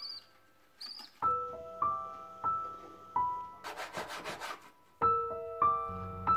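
Background piano music: a slow melody of single sustained notes. About halfway through there is a brief burst of rustling noise, and a low hum comes in near the end.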